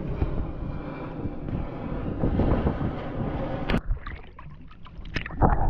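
Boat motor running steadily with wind buffeting the microphone. About four seconds in it cuts off abruptly, giving way to a quieter stretch with a few short knocks.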